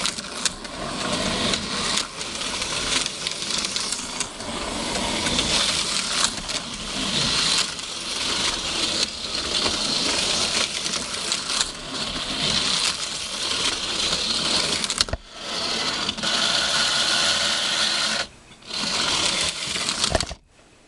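HO-scale slot cars running on a plastic track: the small electric motors buzz and whir, and the cars rattle over the track. The sound drops out briefly twice near the end, then stops just after a sharp knock.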